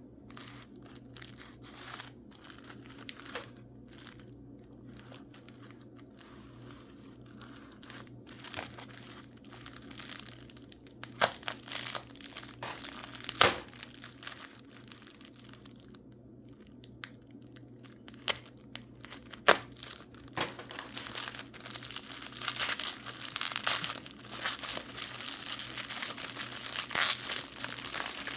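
Packing paper crinkling and tearing as wrapped mineral specimens are unwrapped by hand, with a few sharp snaps; the crinkling turns dense and continuous about two-thirds of the way through.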